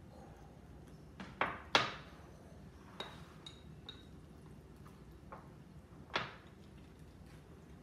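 Wooden chopsticks and ceramic bowls and plates clinking and knocking together as food is picked up: about eight short, sharp clicks, the loudest in a quick cluster near two seconds in. A few carry a brief ringing ping.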